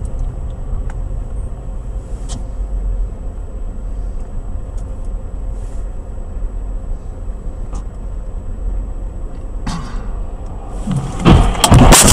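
Steady low rumble of a car driving, heard from inside the cabin through a dashcam. About eleven seconds in, a sudden loud crash with sharp knocks and crunching as the car collides.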